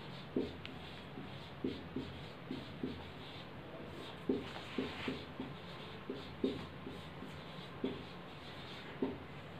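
Marker pen writing on a whiteboard: a run of short, irregular squeaks and taps as a line of text is written out.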